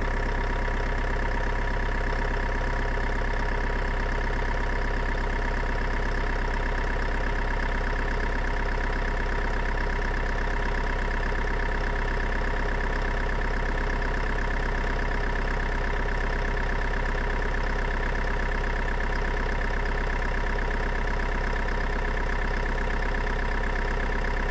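An engine idling steadily, its even running unchanged in speed and level throughout.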